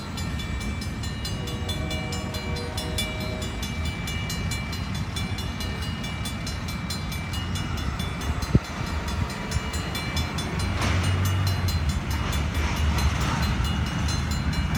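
Freight train cars rumbling over the rails at a grade crossing while the crossing-signal bell rings with rapid, even strikes. The low rumble swells from about two-thirds of the way through.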